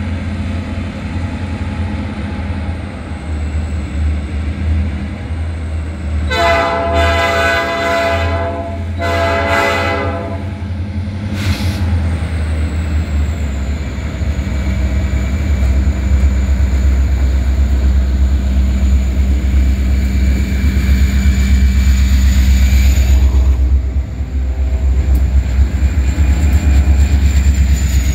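Great Lakes Central diesel freight locomotives approaching and passing close underneath, their engines a steady deep rumble that grows louder as they come by. About six seconds in, the lead locomotive sounds its air horn twice, a long blast then a shorter one.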